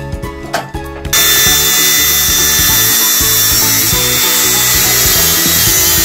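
Cordless angle grinder starting suddenly about a second in and cutting steadily through electrical cables, a loud even hiss over background music.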